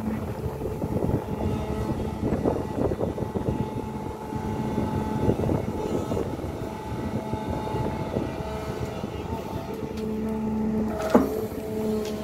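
SANY crawler excavator's diesel engine running under load, with a steady hydraulic whine as the boom lifts out of the pit and swings; the whine grows stronger near the end. A sharp clank about eleven seconds in.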